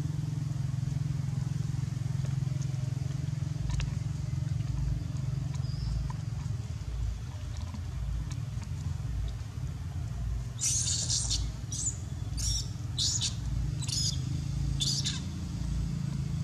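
Steady low motor hum with a slow, regular throb. About two-thirds of the way in, a quick run of several short, high chirps.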